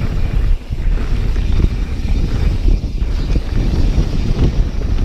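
Wind buffeting the microphone over the rumble and irregular clatter of a mountain bike descending a rough trail.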